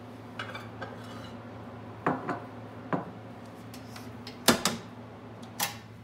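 Dishes clinking and knocking as a plate and a glass of water are taken out of a 1968 Husqvarna Cupol microwave oven and set down on a wooden table, and the oven's metal dome is swung shut. About half a dozen sharp knocks, the loudest about four and a half seconds in, over a low steady hum.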